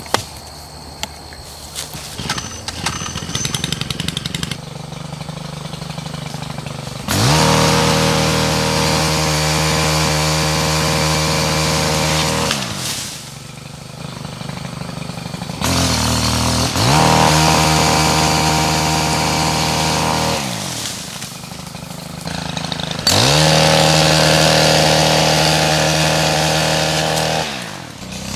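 Stihl gas extension chainsaw (pole saw) cutting branches overhead. It idles at first, then is run up to full throttle three times for about four to five seconds each, dropping back toward idle between cuts.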